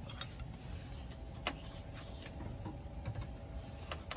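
Light, scattered clicks and taps of kitchen utensils and dishes being handled, about five over a few seconds.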